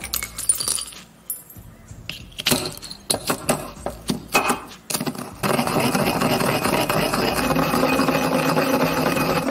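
Stainless steel pestle in a stainless steel mortar grinding calcium carbonate. Sharp separate metallic clinks and knocks come first; from about halfway they give way to a steady, continuous grinding scrape.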